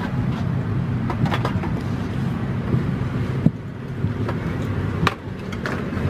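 Steady low hum inside an Airbus A330-200 airliner cabin as passengers leave, with scattered light clicks and knocks; a sharper knock comes about three and a half seconds in and another about five seconds in.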